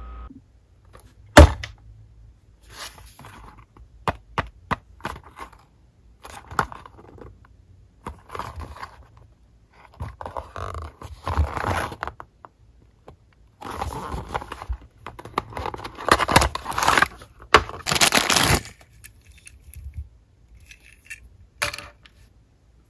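Unboxing handling noise: a small cardboard toy box turned over and opened by hand, with sharp clicks and clacks and longer stretches of scraping and rustling packaging. The loudest is a single sharp click about a second and a half in.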